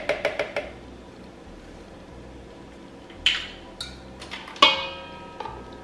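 A metal spoon clinking quickly against a cup, about six taps in under a second, knocking off Greek yogurt. After a quiet stretch come a few clanks of kitchenware being handled; the loudest, about a second before the end, rings on briefly.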